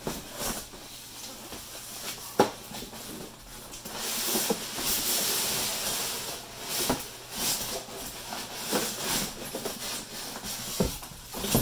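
Cardboard box and styrofoam packing being handled: sliding, scraping and rustling, with a sharp knock about two and a half seconds in and a longer scraping hiss from about four to seven seconds.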